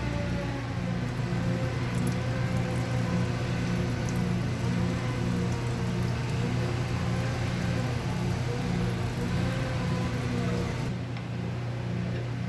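Metal lathe running steadily: a low motor and gearbox hum with a faint wavering whine.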